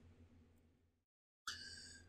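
Near silence: room tone with a faint low hum. It cuts out completely for a moment about a second in.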